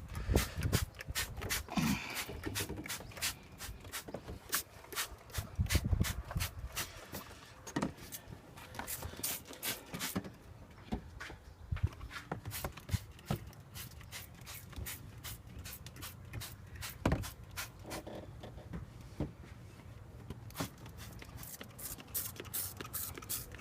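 A hand trigger spray bottle squirted again and again in quick runs of short sprays, degreaser going onto the engine. A low rumble of wind on the microphone comes and goes.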